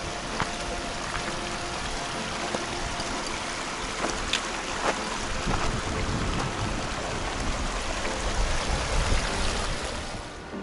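Small mountain stream running over stones where it springs from under the rocks beside a high alpine lake: a steady rush of water with scattered small splashes, a little louder in the second half.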